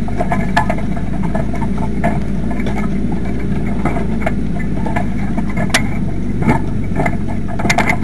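Tractor-mounted reversible plough rattling and clanking as a John Deere tractor pulls it through the soil. Irregular sharp knocks from the plough frame sound over the tractor's steady low drone.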